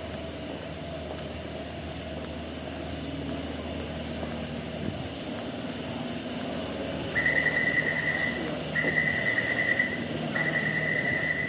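Metro train noise, a steady rumble and hum, then about seven seconds in a high electronic warning tone beeps three times, each beep over a second long.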